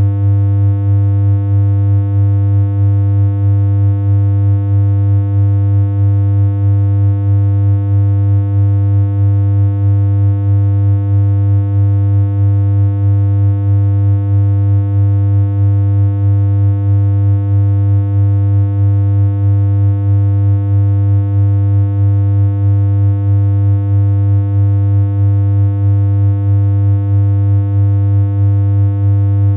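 Steady synthesized electronic hum: one unchanging low buzzy tone with a stack of overtones and a slight, regular wobble in level.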